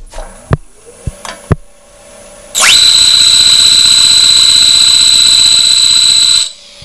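Woodturning texturing tool's toothed wheel pressed against a bowl spinning on the lathe, cutting a serrated pattern into the wood. After a few light knocks it spins up with a rising shriek about two and a half seconds in, holds a deafening, steady, high-pitched whine, then cuts off suddenly near the end.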